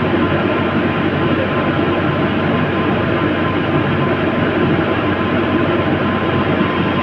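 Heavy diesel engine of construction machinery running steadily at a loud, even level, with a faint steady whine over the engine noise.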